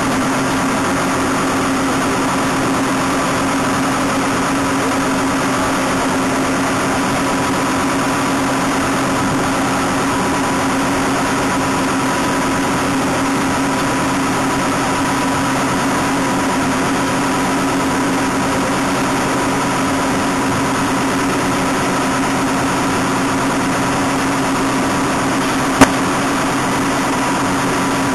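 SAMSON over-the-row raspberry harvester running steadily, its engine and picking mechanism making an even, unbroken drone. There is one sharp click near the end.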